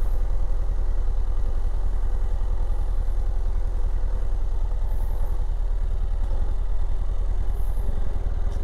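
Motorcycle engine running at low speed as the bike rolls slowly over a dirt track, a steady low rumble with rapid even firing pulses. It eases slightly near the end as the bike slows.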